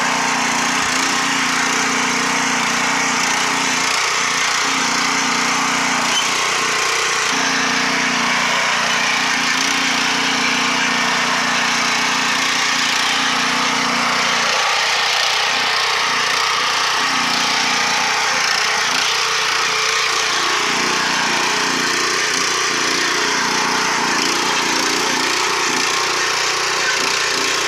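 A small walk-behind Ogawa rotary tiller running under load, its engine driving the tines through dry soil and stubble with a dense clatter of thrown clods. The engine note shifts a few times as it works.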